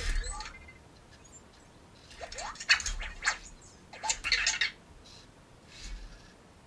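Anki Vector robot moving about: short bursts of its small motors whirring as it turns on its treads and lifts its arm, mixed with quick rising chirps. There are four bursts, the middle two the longest and loudest.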